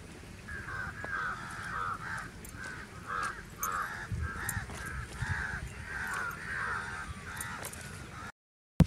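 Crows cawing over and over, a steady run of harsh caws about two a second. The sound drops out abruptly near the end.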